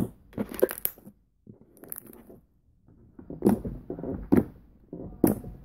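Homemade pink slime being squeezed and kneaded by hand, giving a run of short squelches and sticky pops, roughly one a second.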